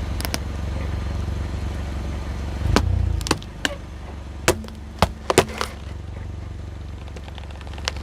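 A car tyre rolls over a pumpkin. A low engine hum swells, then about seven sharp cracks and crunches come over roughly three seconds as the pumpkin's shell breaks under the wheel.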